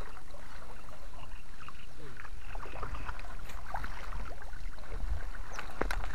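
A hooked fish splashing and thrashing at the surface while a landing net is dipped under it and lifted, with water sloshing, a few sharper splashes near the end and a steady low rumble underneath.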